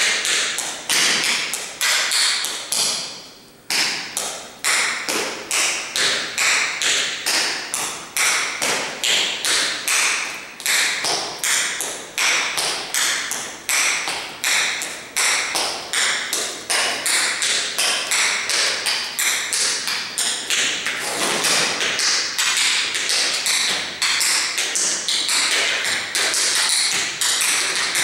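Tap shoes striking a hard vinyl floor in a dance routine: a long run of sharp, rhythmic taps, with a short pause about three seconds in and the taps coming thicker and faster in the second half.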